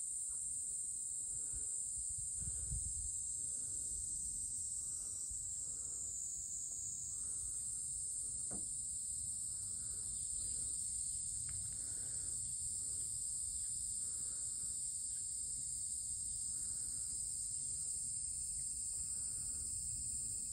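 Steady high-pitched chorus of summer insects, with softer pulsing calls repeating about once a second underneath.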